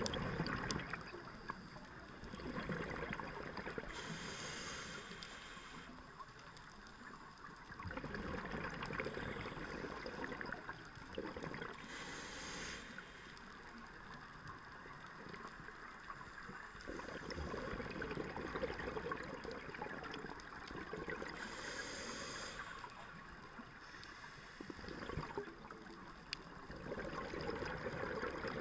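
Scuba diver's regulator breathing underwater in a slow cycle. Long stretches of exhaled bubbles gurgle and rumble, and a short hiss of inhalation comes about three times, roughly every eight or nine seconds.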